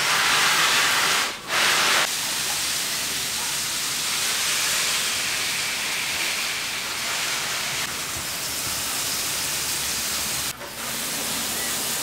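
Water spraying from a pistol-grip garden hose nozzle onto leafy potted plants: a steady hiss, broken off briefly twice, about a second and a half in and again near the end.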